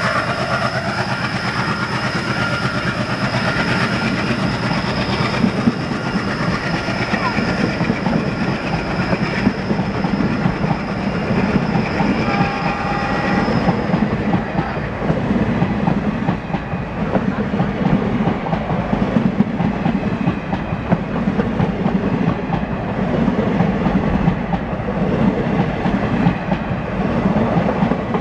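Two passenger trains passing each other at close range: coaches rolling by with a steady clickety-clack of wheels over rail joints and a low rumble. A thin high whine stops about halfway through as one train clears, and the other's coaches keep clattering past.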